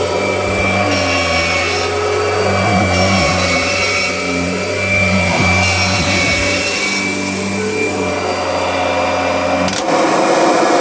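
Kirby G6 upright vacuum running steadily with a low hum and a steady whine. Near the end there is a click, the low hum drops out and the vacuum runs on with a rougher, hissier sound.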